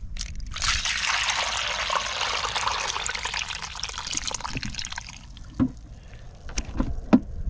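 Water and whitebait poured from a container into a plastic colander, splashing and draining for about four seconds. The pour stops, followed by a few small knocks near the end.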